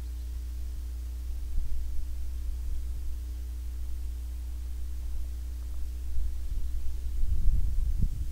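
Small tractor engine idling steadily, a low, even hum. From about six seconds in, irregular low rumbles come and go over it.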